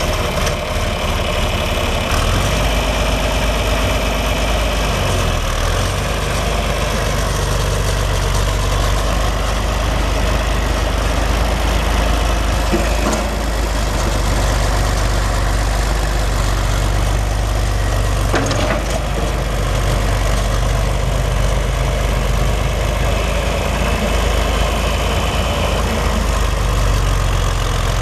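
John Deere 4020 tractor's six-cylinder diesel engine idling steadily, with a couple of faint clicks partway through.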